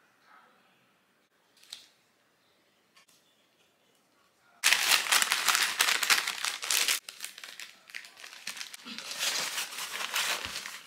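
A few faint taps, then from about five seconds in loud crinkling and rustling of paper packaging being handled and folded, such as a paper bag, continuing in uneven bursts.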